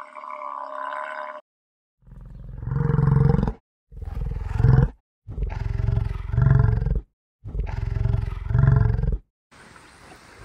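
Stag roaring during the rut: four deep, drawn-out roars in a row, each lasting one to two seconds, the last two swelling twice. Near the end the roars give way to a quieter, even rustle of wind or leaves.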